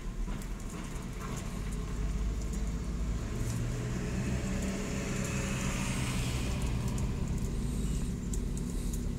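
A motor vehicle's engine running steadily with a low hum, getting louder about two seconds in, with light ticks over it.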